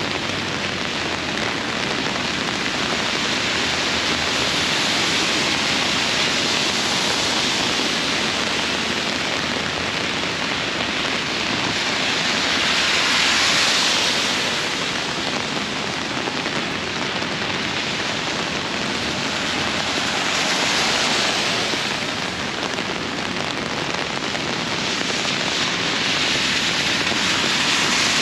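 Steady rain falling in a downpour, an even hiss that swells louder a few times, about halfway through and near the end.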